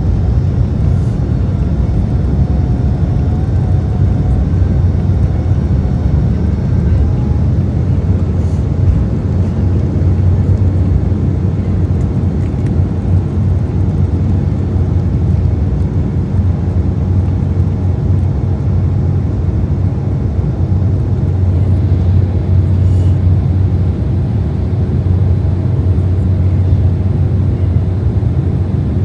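Jet airliner's engines at takeoff power, heard inside the cabin as a loud, steady low rumble while the plane rolls down the runway, lifts off and climbs out.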